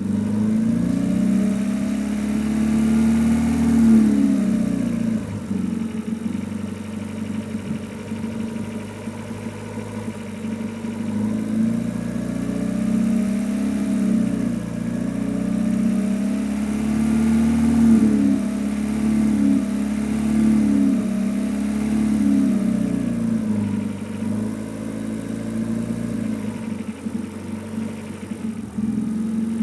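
Renault Mégane 2 RS 2.0 turbo four-cylinder engine running, its revs rising and falling gently again and again through the low range. The owner hears a strange noise mostly between 1250 and 1750 rpm, still present despite new coils, spark plugs and injectors.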